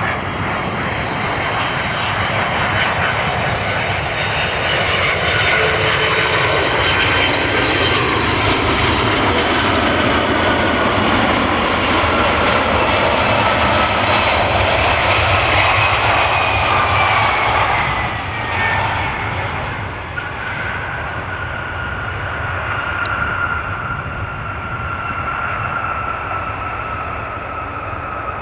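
Jet airliner on its landing approach passing close by. The engine noise and whine build to a peak about halfway through, then the whine drops in pitch as it passes and the noise eases off.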